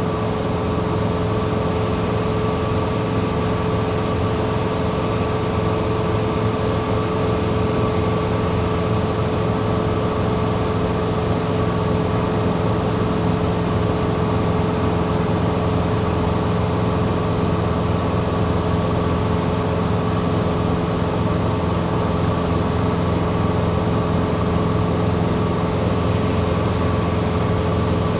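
Piper Cherokee 180's four-cylinder Lycoming O-360 engine and propeller running steadily at cruise, heard inside the cabin as a constant, unchanging hum.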